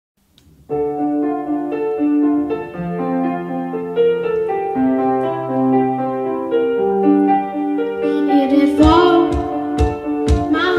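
A school band's piano-keyboard intro of sustained chords; about nine seconds in a drum kit joins with a steady beat and a young singer comes in.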